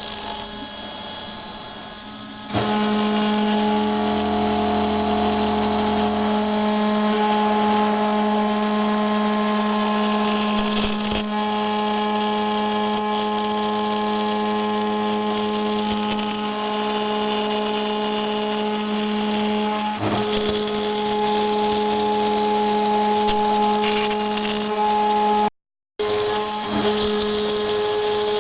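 CNC milling machine spindle whining steadily as the cutter mills aluminium, holding several constant tones. It steps up in loudness about two and a half seconds in and cuts out for a moment near the end.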